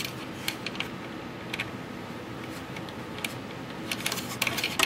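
Small clicks and taps of bolts and T-nuts being handled and threaded by hand against a plywood firewall. The clicks come irregularly, with a quick cluster near the end.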